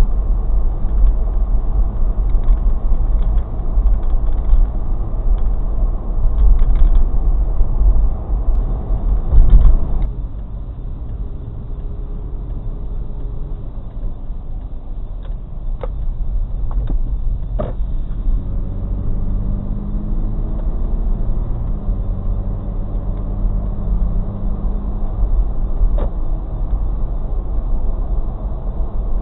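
Road and engine noise inside a moving car's cabin: a steady low rumble that drops in level about ten seconds in. A few light clicks or knocks come later.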